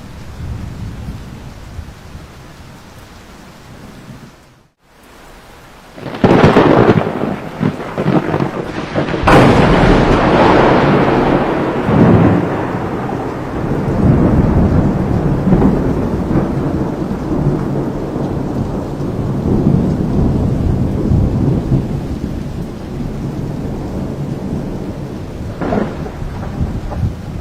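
Monsoon thunderstorm: rain hissing steadily, with a loud thunderclap about six seconds in and another sharp crack a few seconds later that rolls into a long rumble, slowly fading. A shorter crack comes near the end.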